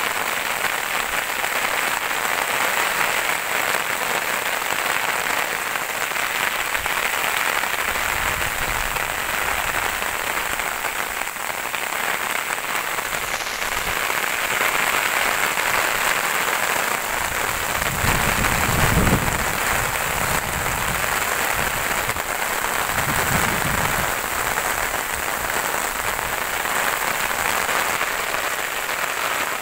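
Steady rain falling, an even hiss throughout, with a few brief low rumbles, the strongest about two-thirds of the way in.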